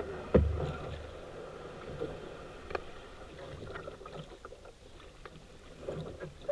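Water splashing and lapping around a small paddled boat on a river, with a sharp knock about a third of a second in and a few faint clicks later.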